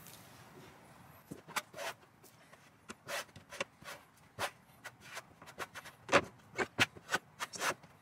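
Notched trowel scraping vinyl adhesive across the back of a vinyl wall tile: a run of short, quick scraping strokes that starts about a second in and keeps going.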